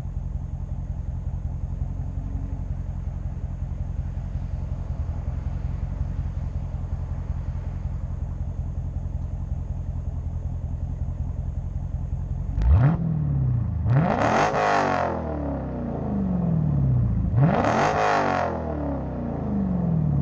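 Dodge Challenger Scat Pack's 6.4-litre HEMI V8, straight through with its mufflers deleted, idling steadily. About twelve seconds in it is blipped once briefly, then revved hard twice, each rev falling back to idle.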